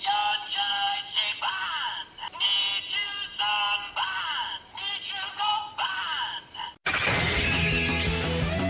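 Electronic sentai transformation toy playing its synthesized voice calls and sound effects: a rapid string of short, high-pitched, chirpy calls with rising sweeps. About seven seconds in, it cuts suddenly to guitar music.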